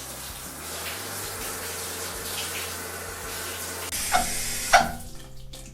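Running water rinsing toy dinosaurs in a small tub, a steady hiss that gets louder for a moment about four seconds in, then stops shortly before the end.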